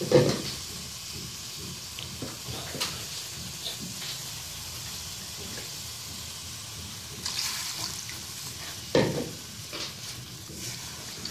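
Beef in a yogurt-and-cream marinade thinned with water, sizzling steadily in a frying pan, with a spatula stirring and knocking against the pan now and then, loudest at the start and about nine seconds in.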